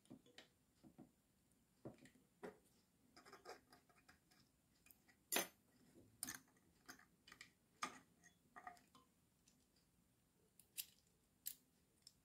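Faint, irregular clicks and light plastic taps from an electric kettle's black plastic base connector being fitted against its thermostat switch block, the sharpest about five and a half seconds in.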